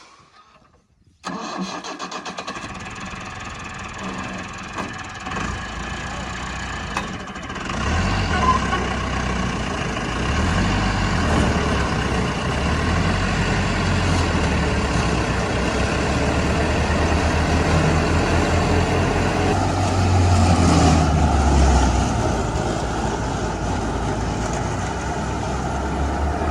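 Massey Ferguson 385 tractor's diesel engine starting: it turns over suddenly about a second in, runs louder from around eight seconds in, then keeps running with a low note that wavers up and down.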